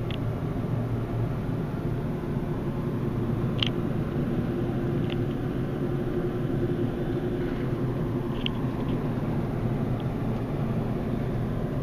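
Steady low rumble of an idling vehicle engine, with a steady hum through the middle and a few brief faint high chirps, one about a third of the way in and one past two thirds.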